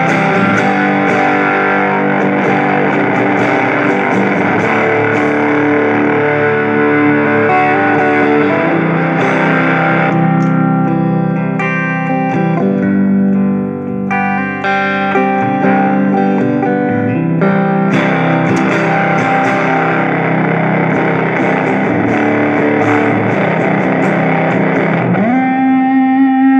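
Electric guitar (Squier Stratocaster) through a Fuzz Face Mini fuzz pedal and a Fender Champion 20 amp, playing fuzzy distorted chords with a stretch of single picked notes in the middle. Near the end a note slides up and is held.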